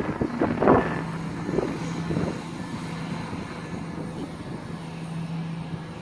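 Class 170 Turbostar diesel multiple unit's engines running with a steady low drone as the train stands ready to depart.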